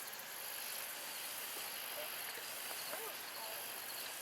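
Outdoor insect chorus: a high-pitched shrill that swells and fades in waves about every second and a half.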